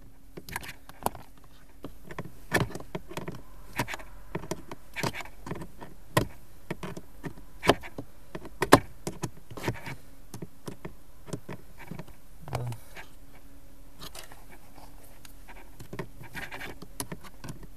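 Pliers working a bolt on the heater blower motor cover, tightening it: a run of irregular sharp clicks and ticks, a few of them louder, over a faint steady hum.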